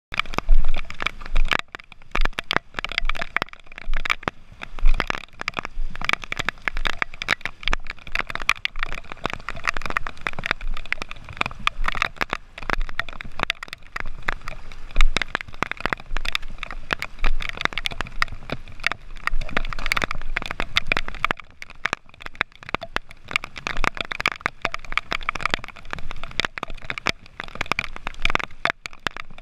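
Underwater crackling: a dense, irregular patter of small clicks and crackles heard through an action camera's waterproof housing just below the surface. It starts suddenly at the cut to the underwater footage.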